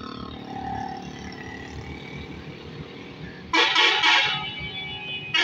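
Truck horn sounding loudly for about a second, about three and a half seconds in, and briefly again at the end, over a steady hum of passing truck engines and traffic.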